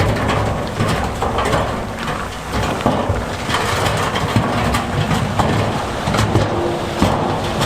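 Heavy diesel earthmoving machinery running under load, with rocks clattering and grinding throughout.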